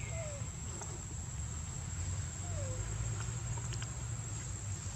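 Outdoor ambience: a steady high insect drone over a low rumble, with two short falling animal calls, one at the start and one about halfway through.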